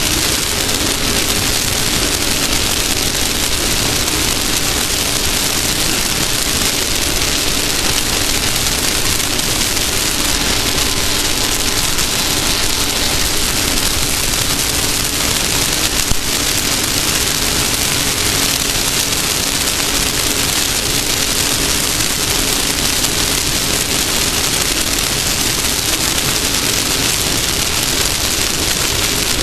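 Off-road race car running at speed, heard on board: a loud, steady rush of wind and road noise with the engine's drone underneath, and a single sharp knock about halfway through.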